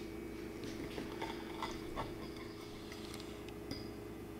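Quiet room tone: a steady low hum with a few faint, light clicks.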